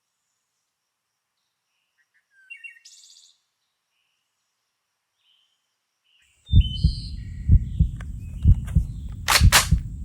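Songbird chirps over quiet, then about six and a half seconds in a low pulsing rumble starts suddenly, beating about twice a second, with more chirps and two sharp loud noises near the end.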